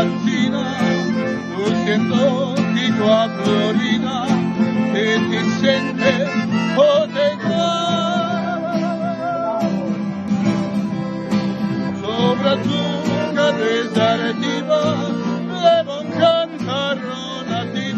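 A man singing while strumming an acoustic guitar; around the middle he holds one long note with vibrato.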